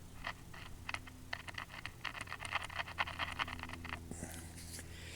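Small Panasonic R-111 AM transistor radio's speaker crackling and clicking irregularly as its volume control is worked, thickest in the middle, over a steady low hum: the audio stage is alive though no station comes through.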